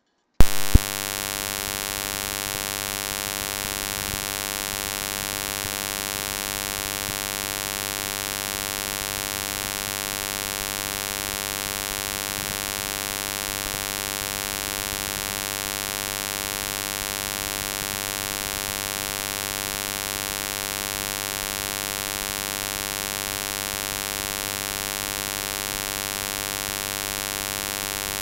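Steady electrical mains hum with static hiss, switching on with a sharp click just after the start and holding unchanged throughout.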